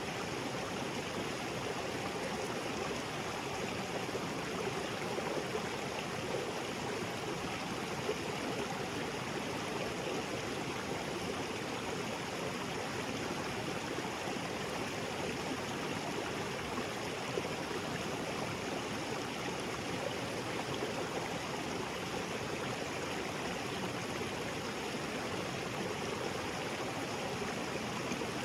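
Small waterfall splashing into a creek, a steady, even rush of falling and flowing water.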